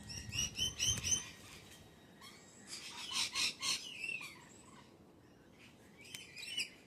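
Pet parrot chirping in three bouts of short, high chirps: a quick run at the start, a busier cluster with falling notes in the middle, and a brief run near the end.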